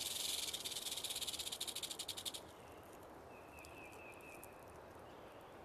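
Rattlesnake shaking its tail rattle, a fast dry buzz that cuts off suddenly a little over two seconds in. After it, a faint high trill, like an insect, comes twice.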